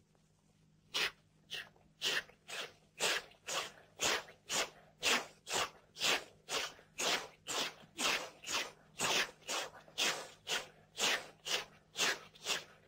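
Voices imitating a steam locomotive: a steady 'choo-choo' chuffing of short breathy puffs, about two a second, starting about a second in.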